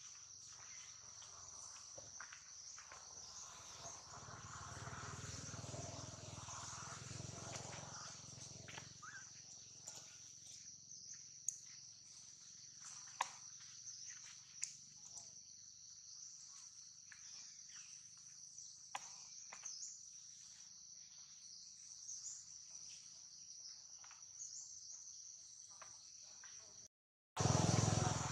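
Steady high-pitched drone of insects in a forest, with a few sharp clicks scattered through it. Near the end the sound breaks off briefly and comes back with a louder low rumble.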